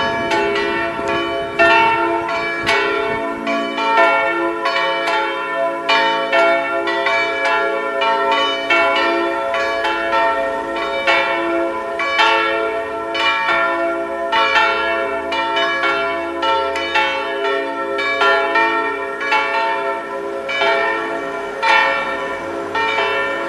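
Several church bells hung in an open tower frame atop the church roof, ringing together in a full peal: strikes every half second to a second in an uneven, overlapping rhythm, each leaving a long ringing tone.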